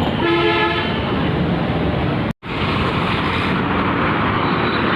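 Road traffic noise with wind on the microphone, and a vehicle horn sounding briefly near the start. The sound cuts out for an instant about two seconds in.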